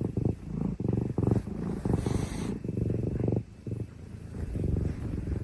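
A domestic cat purring, the purr coming in stretches with short breaks between breaths. There is a brief rustle of bedding about two seconds in.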